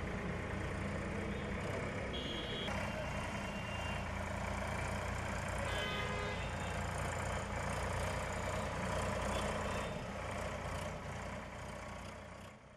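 A tractor's diesel engine running steadily at low speed, a deep even hum, with two short high-pitched beeps about two and six seconds in.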